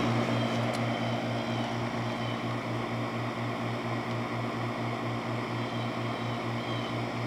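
Haier 6000 BTU window air conditioner running steadily: a low compressor hum with the rush of air from its fan.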